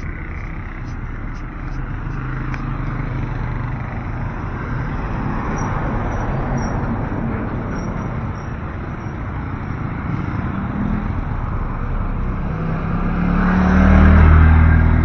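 Motorcycles and other road traffic passing on a paved street. The noise grows louder near the end as a motorcycle's engine comes up close.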